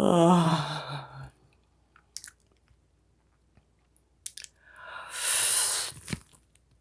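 A woman yawning close to the microphone: the voiced end of one yawn falls in pitch and fades about a second in, a few small mouth clicks follow, then another long, breathy yawn with a sharp click near the end.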